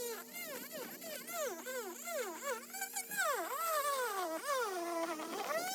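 Oscillating multi-tool with a vibrating blade cutting through wooden window trim, buzzing, its pitch repeatedly dipping and rising as the blade bites and eases off.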